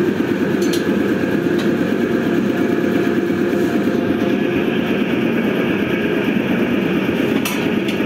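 A loud, steady machine-like drone runs throughout, with a few light metal clicks from a tyre lever working a motorcycle tyre against its wheel rim.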